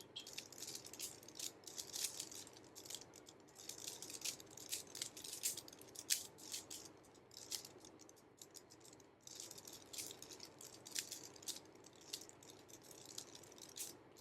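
Plastic Rubik's Cube being turned quickly by hand: dense, irregular clicking and rattling of the layers as they twist.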